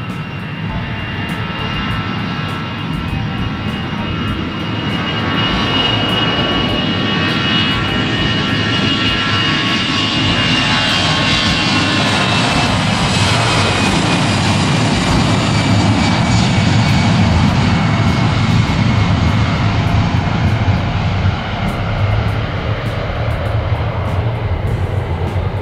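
Airbus A320 jet engines, the sound building over the first several seconds and staying loud, with a high whine that slowly drops in pitch.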